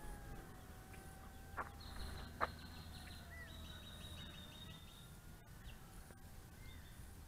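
Faint hum of the Volantex Ranger 600 RC glider's mid-mounted electric motor and propeller in flight, its pitch drifting slowly up and down. Birds chirp over it, with a fast trill in the middle and two sharp clicks about one and a half and two and a half seconds in.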